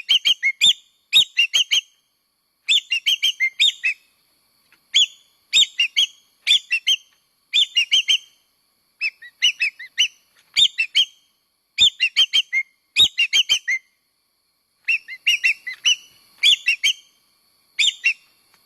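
Common green magpie calling: short phrases of several loud, whistled notes in quick succession, repeated every second or two with brief pauses between them.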